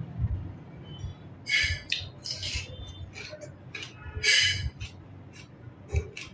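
Eating sounds close to the microphone: short wet smacks and slurps of a man chewing rice and spicy curry eaten by hand, several of them, the loudest about a second and a half in and just after four seconds, over a low steady hum.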